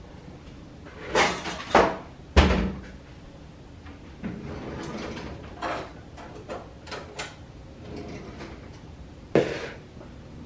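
Kitchen cabinet doors and a cutlery drawer being opened and shut: a few sharp knocks in the first couple of seconds, the loudest a door banging shut with a low thud, then softer rattling of utensils in the drawer and one more knock near the end.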